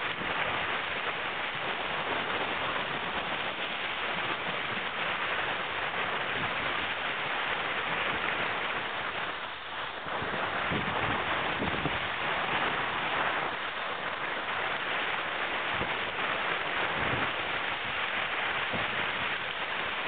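Steady rush of wind on the microphone and water hissing and splashing past the hull of a Moore 24 sailboat moving fast through choppy water, easing briefly about halfway through.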